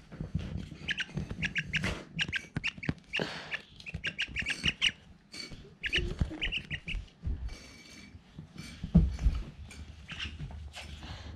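A myna calling in quick series of short, harsh chattering notes, repeated again and again, with clicks between them. About nine seconds in there is a single low thump.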